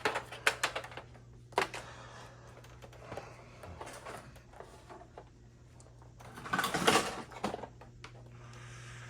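Objects being handled and moved about: a quick run of clicks and knocks, another knock a little later, and a louder scraping rustle near the end, over a steady low hum.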